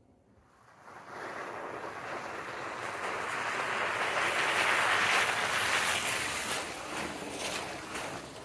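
Jeep Gladiator pickup driving past on a wet, slushy dirt road: a hiss of tyres through slush and wet sand swells to a peak about five seconds in and then fades as it goes by, with a few sharp ticks near the end.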